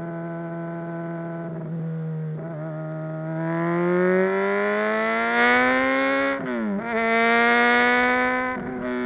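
Honda CBR600RR inline-four engine through a Mivv X-Cone dual exhaust, running at steady revs for a few seconds, then accelerating with the pitch and loudness climbing. The revs dip briefly about six and a half seconds in and again near the end, then hold high.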